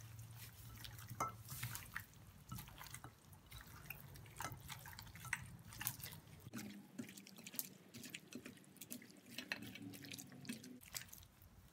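Gloved hand mixing raw chicken pieces in a wet spice marinade in a bowl: faint, irregular wet squelches and clicks.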